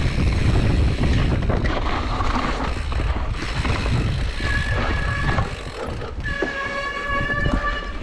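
Mountain bike riding fast down a dirt forest trail: heavy wind rumble on the camera microphone with tyre and frame rattle over the ground. Twice in the second half, a steady high ringing tone from the bike rises above the noise for about a second each time.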